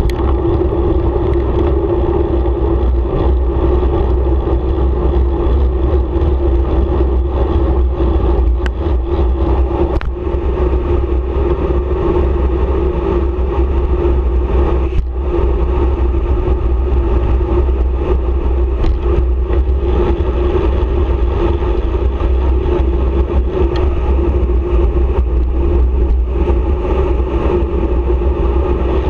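Wind rushing over a handlebar-mounted action camera's microphone as a bicycle descends a paved road at speed: a heavy, steady rumble with a constant hum from the rolling tyres on asphalt. A few brief clicks from road bumps come through, about nine, ten and fifteen seconds in.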